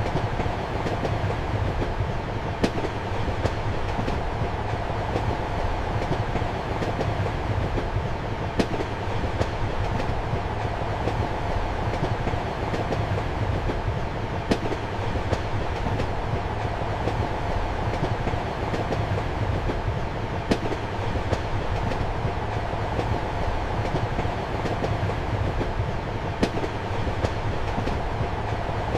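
Passenger train running, heard from inside a compartment: a steady rumble with light clatter from the wheels. A sharper click from a rail joint comes about every six seconds, five times in all.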